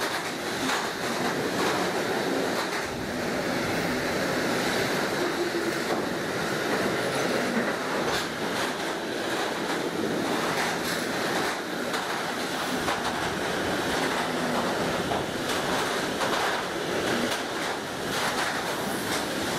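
Freight train of bogie hopper wagons passing close by: a steady rolling rumble of wheels on rail, with irregular clacks as the wheels run over the track.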